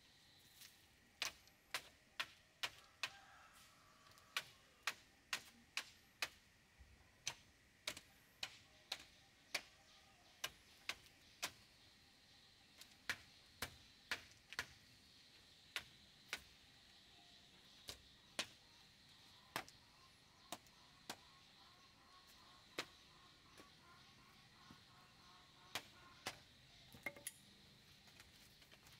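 A series of sharp knocks at irregular intervals, about one or two a second through the first half, then more sparsely. A faint steady high tone sits beneath them.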